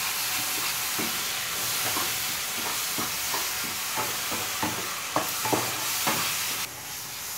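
A thick mango-pulp, sugar and grated-coconut mixture sizzles in a small pan while a spatula stirs it, scraping and knocking against the pan at irregular intervals. The hiss drops away near the end.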